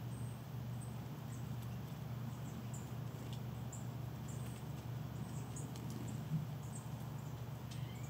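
Small songbirds giving high, thin chip calls, a scattering of short notes a few times a second, over a steady low hum.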